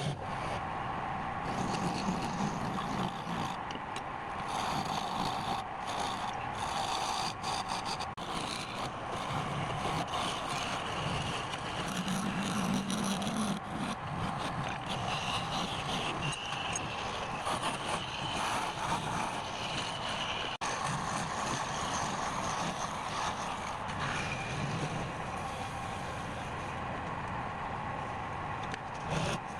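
Wood lathe running steadily, with a hand-held turning tool scraping and cutting into the spinning wood.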